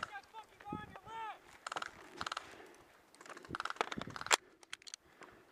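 Airsoft electric guns firing short full-auto bursts, each a quick run of rapid clicks, about two seconds in and again near four seconds, with a single sharp crack just after. Distant shouting comes in the first second or so.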